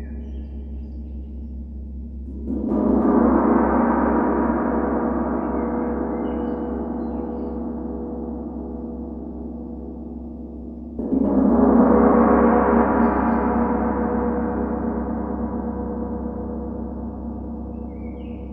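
Large gong struck twice, about eight seconds apart. Each stroke swells quickly into a long, rich wash of overtones that slowly fades, over a steady low drone.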